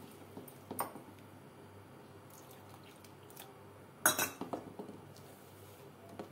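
Steel spoon stirring gram-flour batter in a stainless steel bowl, with a few light clinks of spoon on bowl and a sharper metal clink about four seconds in.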